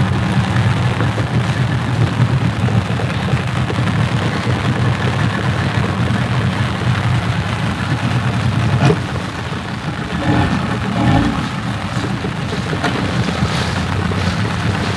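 A fishing boat's engine running steadily at low throttle, holding the boat in place against the river current while a net is hauled in, over a steady hiss. The engine note dips and shifts briefly about nine to eleven seconds in.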